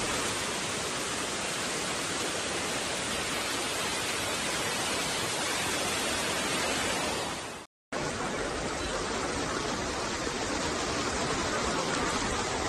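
Floodwater rushing through an underground car park, a steady, even rush of water. It cuts out for a moment about eight seconds in, then a similar steady rush carries on.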